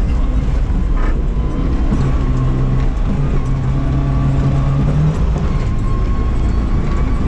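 Rally car driving on a dirt track, heard from inside the caged cabin: a loud low rumble of engine and running gear over rough ground, with the engine holding a steady note for about three seconds in the middle.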